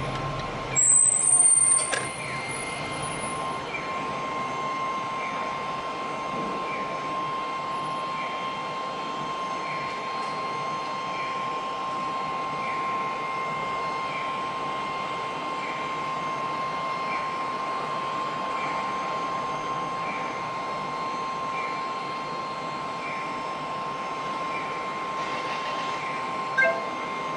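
Steady hum of street traffic around a car waiting at a light, with a faint short chirp repeating about every second and a half. A brief, loud, high-pitched squeal comes about a second in.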